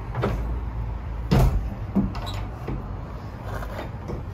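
A few short knocks and clunks against a pickup's hard canopy and tub, the loudest about a second and a half in, over a low steady outdoor rumble.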